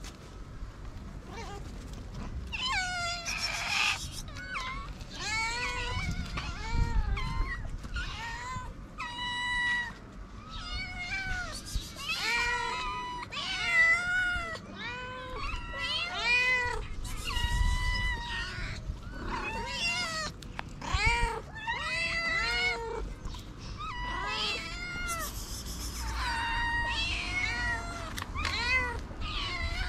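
A group of street kittens and young cats meowing over one another, many short rising-and-falling meows overlapping almost without a break from about two seconds in, begging for food.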